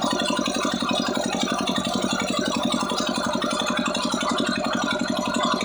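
Old Petter stationary diesel engine running steadily with an even, rapid beat.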